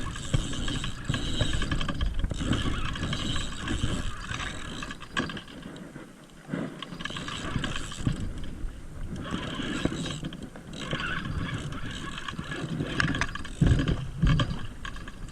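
Spinning or casting fishing reel cranked in uneven spells, its gears clicking and whirring, while a hooked fish is reeled in; a low rumble runs underneath.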